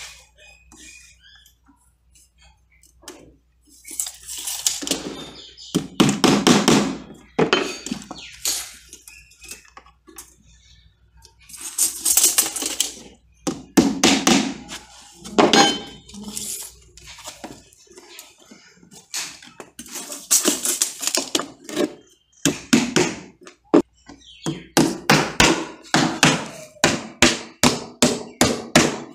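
Hammer driving nails into plywood and timber formwork boards: bursts of sharp blows with pauses between, ending in a steady run of about three blows a second.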